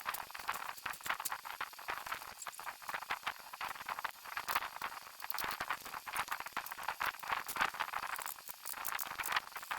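Rapid, irregular clicking and rattling of metal parts and tools as window air conditioners are taken apart for scrap.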